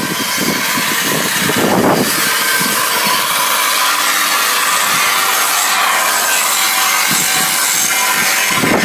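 A power tool grinding steadily without a break: a harsh, hissing abrasive noise with a faint whine through it.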